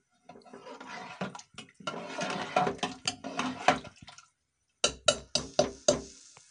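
A metal spoon stirs broken wheat, water and jaggery in a pressure cooker, sloshing the liquid and scraping the pot. Near the end comes a quick run of about six sharp knocks of the spoon against the cooker.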